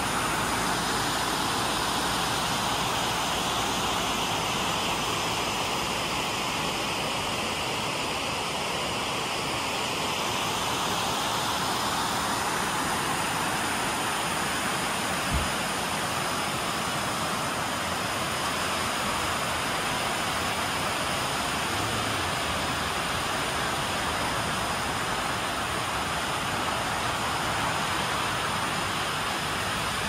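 Waterfall rushing: a steady rush of falling water, with a single brief low knock about halfway through.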